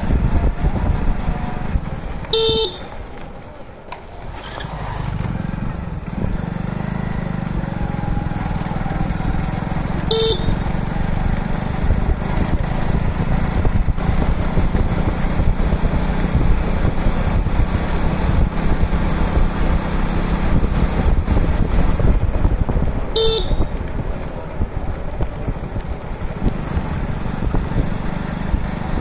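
Motorcycle riding over a rough dirt road: a steady low rumble of engine and road noise. The horn gives three short beeps, one near the start, one about a third of the way in and one late on, and the running noise dips briefly just after the first beep.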